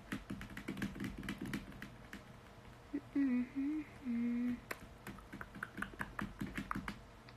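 A woman hums a short wavering tune of a few notes about three seconds in. Before and after it are stretches of quick, irregular light tapping clicks, fingers tapping on a hard surface.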